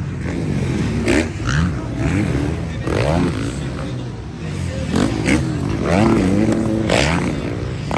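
Motocross motorcycle engines revving on the track, their pitch rising and falling over and over as the bikes accelerate and back off.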